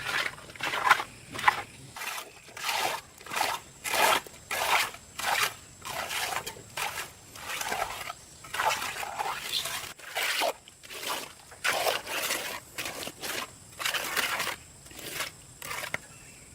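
Rhythmic crunching, scraping strokes, about one and a half a second, which stop near the end.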